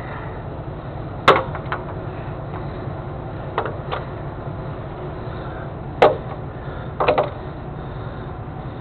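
Heavy wrecker's diesel engine idling steadily with a low rumble. Several sharp knocks are heard over it, the loudest about a second in and about six seconds in, with a quick double knock near the end.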